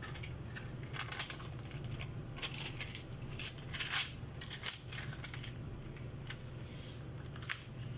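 Irregular light plastic clicks and rustling as an electrosurgical pencil and its cables are handled, over a steady low hum.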